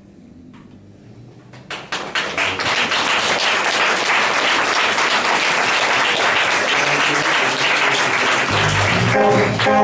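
Audience applauding, starting about two seconds in. Near the end, brass horns on a homemade one-man-band machine begin to sound over the applause.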